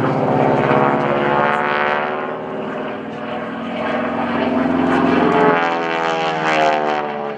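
North American SNJ-5 Texan's Pratt & Whitney R-1340 Wasp radial engine and propeller running during aerobatic manoeuvres. The drone shifts in pitch as the plane dives and turns. It dips slightly about three seconds in and is loudest about five and a half seconds in.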